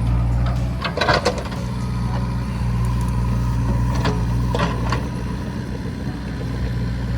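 Tractor engine running steadily, with two brief knocks or clatters, one about a second in and another past the middle, as it works moving stones to rebuild a wall.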